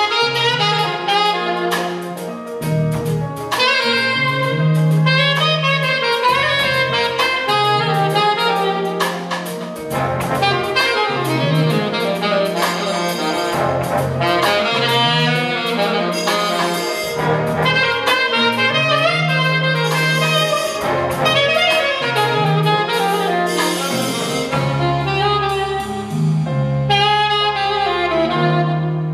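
Big band jazz ensemble playing: an alto saxophone leads over the trumpet, trombone and saxophone sections, with piano, bass line and drum kit with frequent cymbal strokes underneath.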